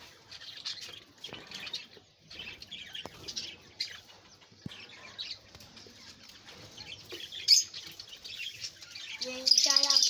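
Budgerigars chattering: many short, scattered high chirps and warbles, with one louder sharp call about seven and a half seconds in.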